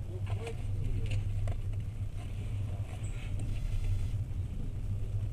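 Steady low rumble of a moving passenger train heard from inside the carriage, with faint voices early on.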